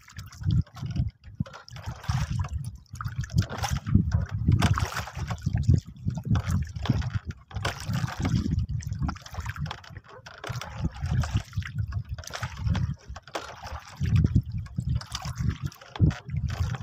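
Sea water sloshing and lapping against the hull of a small wooden boat, in irregular uneven slaps.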